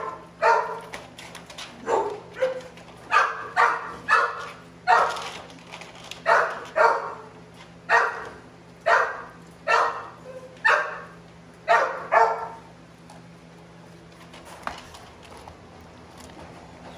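Pit bull-type dog barking repeatedly, about a dozen loud barks in ones and twos that stop about twelve seconds in. A faint steady low hum sits underneath.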